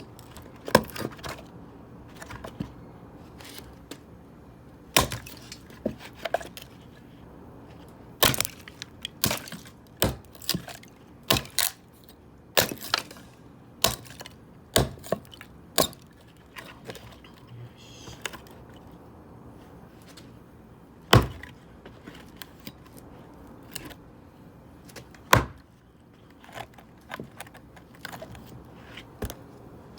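Axe striking and splitting dry seasoned firewood: a dozen or more sharp cracking blows at an uneven pace, bunched together in the first half, with the two loudest blows further apart near the end.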